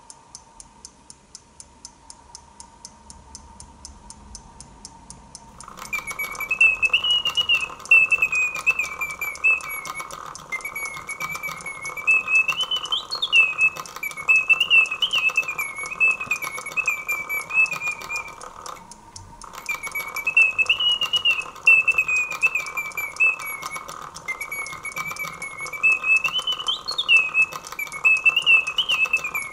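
Karl Griesbaum whistler automaton: the clock ticks steadily, then about six seconds in the mechanical whistle starts up and plays a German folk tune in a sliding, warbling pitch. The tune breaks off briefly past the middle and carries on, with the clockwork ticking still heard beneath it.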